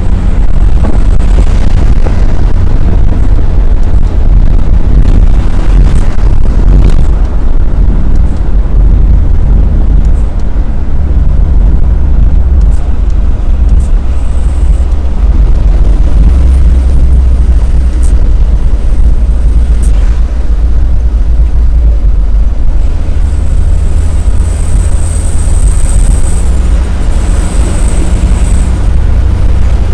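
Steady, loud rumble of an Isuzu Elf minibus's engine and tyres, heard from inside the cab at highway speed. Near the end, a faint high whine comes and goes.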